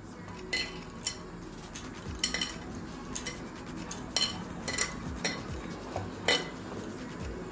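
Hands tossing peeled pointed gourd pieces with salt and turmeric in a ceramic bowl: soft handling sounds broken by a string of light, ringing clinks against the bowl, about a second apart.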